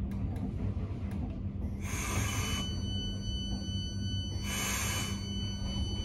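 Electric train coming to a stop, with a steady low hum of its running equipment. A few light clicks come first, then two short bursts of hiss about two and four and a half seconds in. A steady high-pitched tone starts after the first hiss and holds on.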